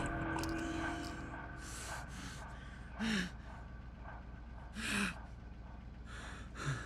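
A man gasping for breath in a series of sharp, ragged breaths, several with a short voiced catch in the throat, about one every second or two: distressed breathing of a panicking patient.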